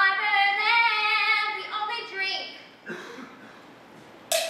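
A teenage girl's solo voice singing a long, wavering held note, followed by a shorter sung phrase. A sharp click comes near the end.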